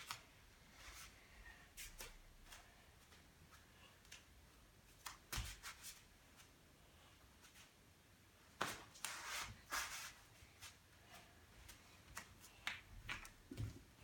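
Quiet room with faint, scattered soft thuds and rustles from a person moving barefoot-light on a foam exercise mat. There is a single low thud about five seconds in, and the busiest run of rustling a little past halfway.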